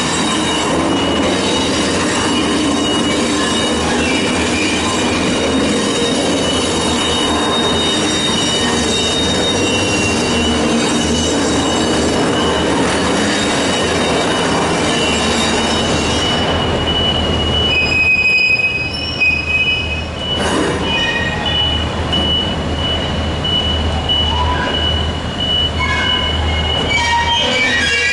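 Steel railway wheels squealing on the rails in a steady high whine as a diesel shunting locomotive moves rail wagons, with the low rumble of its engine underneath. The squeal dips briefly about two-thirds of the way through.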